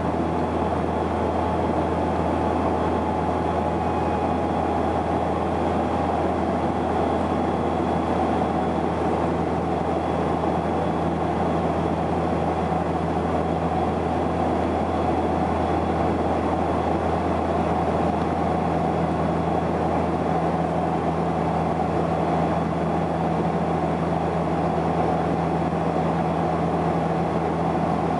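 Steady cabin drone of a Saab 340B's twin turboprop engines and propellers heard from inside the passenger cabin: a constant low propeller hum under an even rush of airflow and engine noise.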